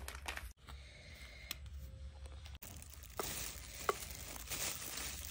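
A brush stirring and scraping a creamy hair-colour mix in a bowl, faint in the first half, with a couple of light clicks of the brush against the bowl in the second half.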